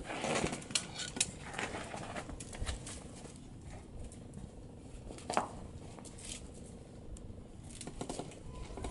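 A puppy's paws and claws scuffing and clicking on pebble paving as it worries and drags a slipper: scattered scrapes and taps, busiest in the first second, with one sharp click about five seconds in.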